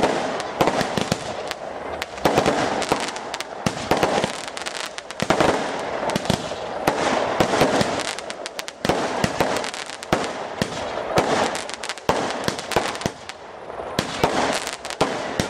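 Fireworks display going off: a dense, unbroken run of sharp bangs over continuous crackling.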